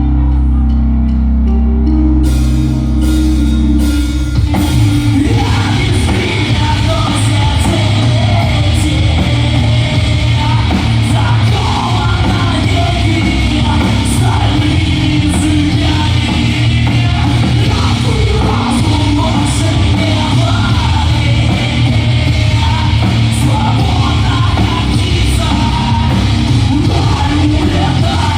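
Live rock band playing a song: sustained bass and guitar notes open it, drums come in about two seconds in, and the full band with a singing voice takes over from about four seconds in.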